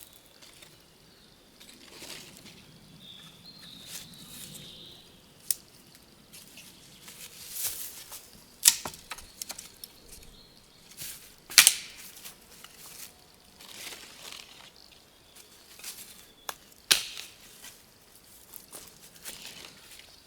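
Dry twigs and forest-floor litter cracking and crunching in irregular sharp snaps, with rustling between them.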